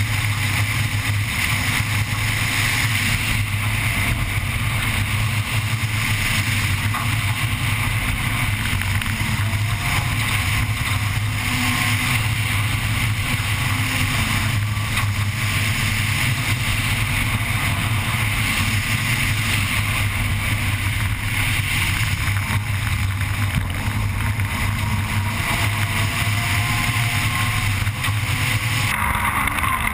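Onboard sound of a Honda Civic Type R N3 rally car driving a gravel stage: its engine running hard, with tyre and gravel noise and wind, steady throughout. Near the end the sound changes abruptly.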